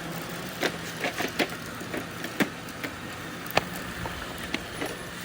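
Robot vacuum cleaners running with a steady hum, broken by a dozen or so sharp, irregular clicks and ticks of dry cereal pieces being swept up and knocked about by the machines.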